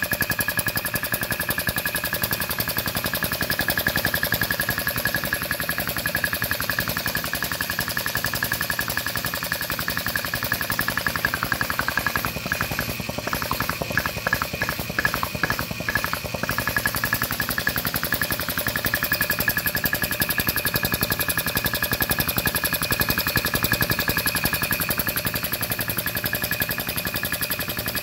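A belt-driven single-cylinder air compressor pump and its electric motor running steadily, with a rapid, even pitter-patter of pumping strokes and a steady whine above it. In the middle there is a run of sharper clicks, about two a second, lasting a few seconds.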